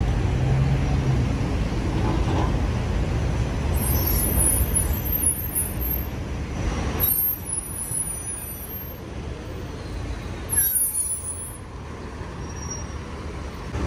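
Busy city street traffic: engines of buses and trucks running with a steady low rumble, and short bursts of hiss about four, seven and ten seconds in.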